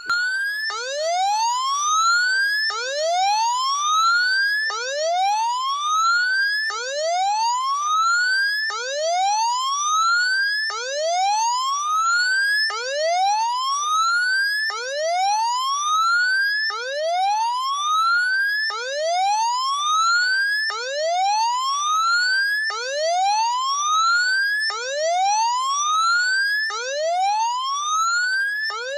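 Siren sounding a repeating whoop: each tone sweeps up in pitch for about two seconds, cuts off, and starts again low, over and over.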